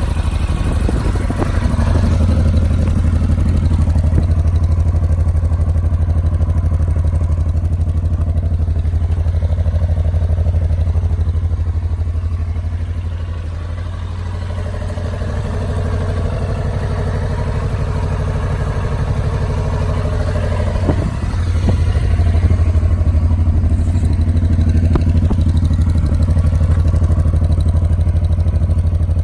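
Honda Transalp 700's V-twin engine idling steadily, dipping slightly in level about halfway through.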